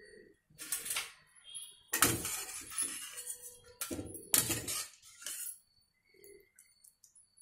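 Metal utensils clattering and scraping: a skimmer knocking against a steel frying pan of hot oil and a wire-mesh frying plate, in several short clinks and clangs, the loudest about two seconds in and again around four and a half seconds.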